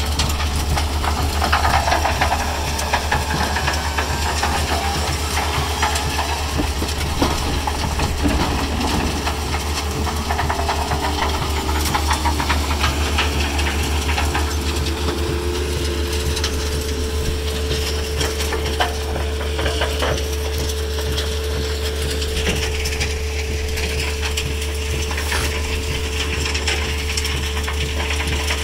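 Heavy diesel machinery working: a John Deere 323E compact track loader moving soil beside a running Komptech Joker mobile trommel screen. A steady low engine drone runs under scattered clattering knocks, and a steady whine joins about halfway through.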